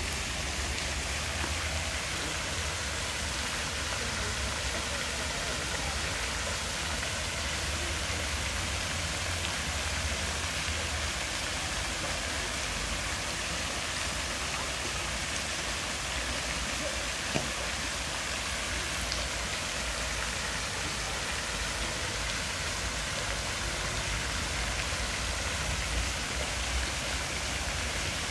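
Park fountain: many thin jets falling back into a shallow pool, a steady rain-like splashing and patter of water.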